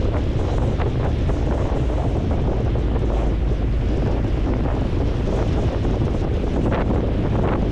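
Wind buffeting the microphone aboard a ferry under way, a steady heavy rumble mixed with the rush of water, with a few brief louder gusts.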